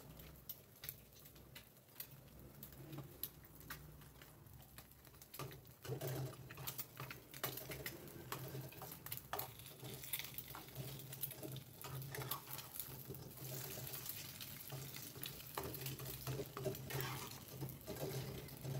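An egg frying in oil in a non-stick pan, sizzling faintly, with scattered clicks and scrapes of a metal spatula against the pan.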